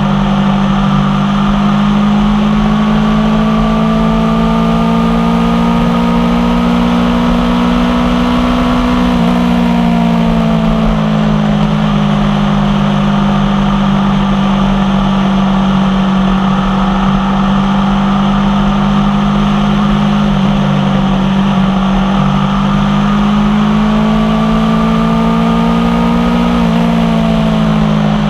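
Aprilia Tuono V4 1100 Factory's V4 engine running through an unbaffled M4 carbon exhaust while riding at steady speed. The engine note climbs slowly, drops about nine seconds in, then climbs again and drops near the end.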